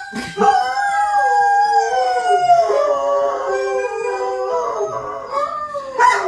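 Several dogs howling together in long, wavering howls at different pitches, the howl dogs give when they think their owner has left the house.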